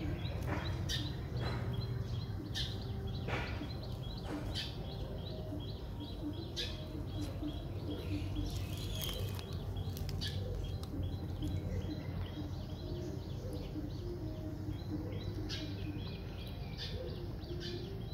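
Kittens chewing grilled dried fish: a run of irregular sharp crunches and clicks, with short high chirps of birds in the background over a steady low rumble.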